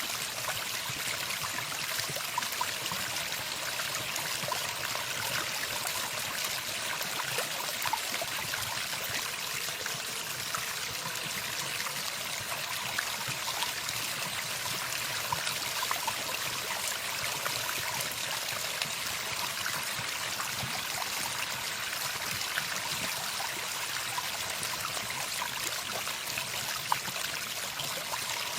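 Running water from a stream, flowing steadily with occasional small splashes.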